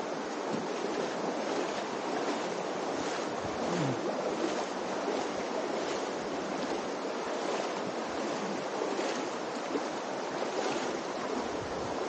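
Steady rush of the Virgin River's shallow water in the canyon, with faint splashes repeating about every three-quarters of a second, like wading footsteps.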